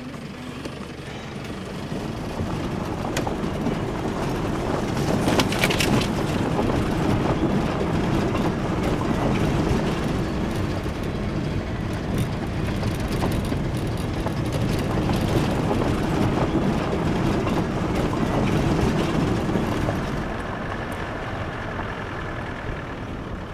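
Vehicle driving over a rough dirt track, heard from inside the cabin: steady engine and tyre noise with knocks and rattles of the body, growing louder after about two seconds and easing near the end.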